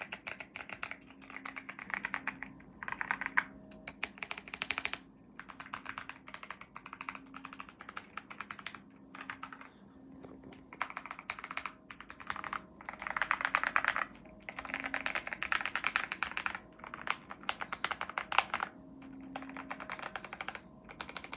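Typing on a Keychron Q6 Max full-size keyboard with Gateron Jupiter Brown tactile switches: quick runs of key clicks in bursts of a second or two, with short pauses between.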